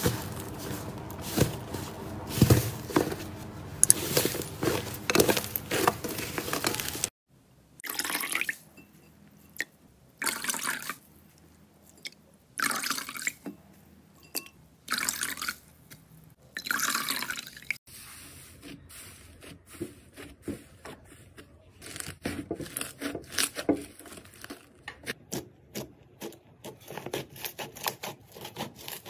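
Hands squishing and pressing slime. First comes a thick fluffy slime with dense sticky crackling and popping. After a sudden cut about seven seconds in, there is a run of separate wet squelching presses into a clear jelly slime, then many small pops and crackles from a fluffy slime.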